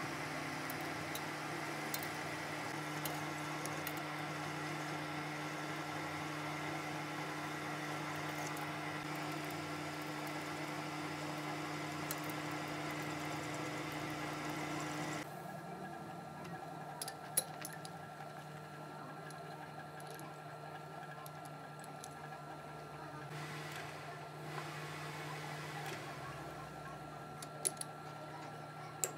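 Manual metal lathe running, a steady hum with a higher constant whine as the chuck spins and a tool bit turns a small rod. About halfway through the sound drops quieter and duller, and a few sharp clicks follow.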